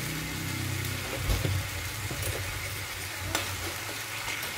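Chili-and-ketchup sauce sizzling in a steel wok as a metal spoon stirs it, with a couple of light clinks of the spoon against the pan.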